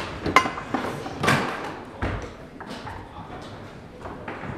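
Foosball table in play: irregular sharp knocks and thuds of the balls being struck by the men on the rods and hitting the table, loudest in the first half.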